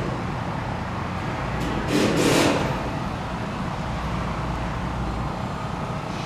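Road traffic: a steady hum of passing vehicles, with one going by more loudly about two seconds in.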